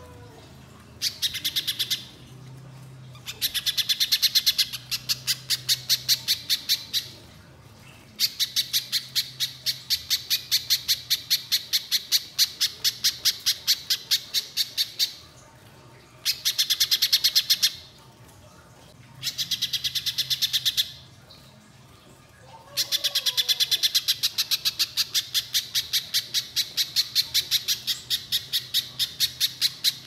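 Little spiderhunter (pijantung pisang) singing in long runs of rapid, sharp repeated notes. There are six bursts split by short pauses, and the longest lasts about seven seconds.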